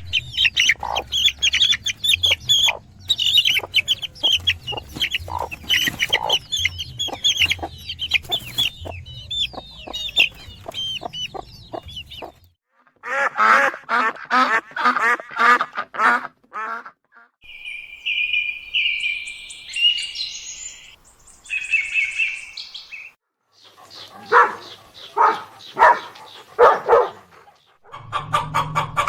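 Bird calls: a dense stretch of high chirping over a low hum for about twelve seconds, then shorter runs of calls separated by brief gaps.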